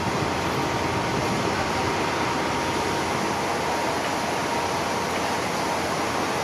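Steady roar of fire-engine pumps running at a fire, feeding water to a ladder platform's monitor, with the hiss of the water stream mixed in and a faint steady whine.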